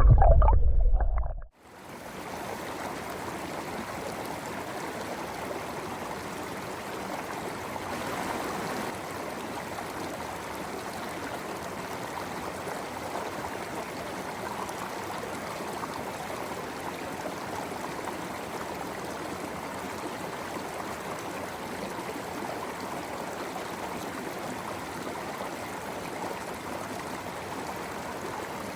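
A creek's water rushing steadily and evenly. A piece of music cuts off in the first second and a half.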